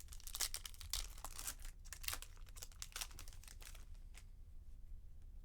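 A foil trading-card pack wrapper being torn open and crinkled: a dense run of crackling rustles lasting about four seconds, then stopping.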